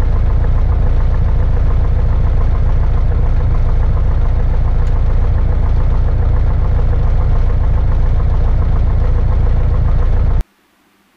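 Single-engine piston aircraft engine running steadily at low taxi power, heard loud from inside the cockpit with a fast, even throb. It cuts off suddenly near the end.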